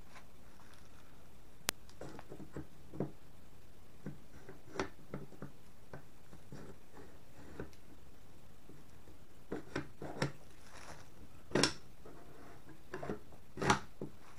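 Scattered metallic clicks, knocks and scrapes from a Vz-52 rifle's action being handled as its bolt carrier, which is hard to get out, is worked in the receiver. Two louder knocks come near the end.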